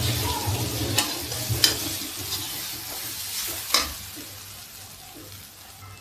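Perforated steel skimmer stirring pieces of fried soybean pakora and onion in a steel kadhai over a low flame, with a light sizzle of oil throughout. The spoon scrapes or knocks against the pan three times in the first four seconds, and then only the quieter sizzle goes on.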